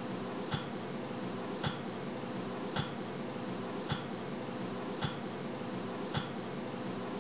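A steady hiss with a short, soft tick repeating evenly about once every second, six ticks in all. It cuts off suddenly at the end.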